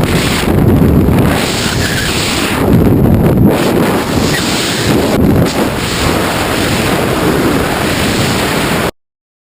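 Loud wind buffeting a camera microphone, a dense rushing noise that surges and eases, then cuts off suddenly near the end.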